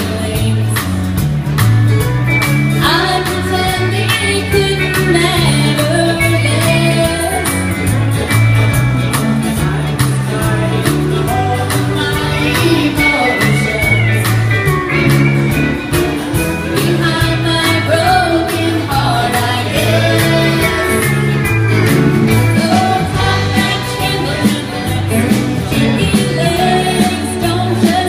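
A live band plays a song with a woman singing lead into a microphone over acoustic guitar, a steady bass line and drums keeping a regular beat.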